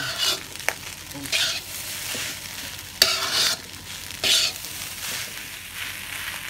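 Metal spatula stirring and scraping fried rice around a hot metal wok over a light frying sizzle, with a few loud scrapes and sharp clinks against the wok a second or two apart.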